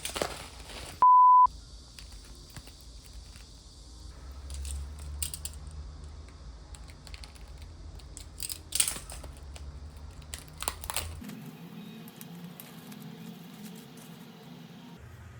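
A loud, steady beep tone for about half a second about a second in. Then scattered crinkling, rustling and sharp clicks as album packaging is handled and opened.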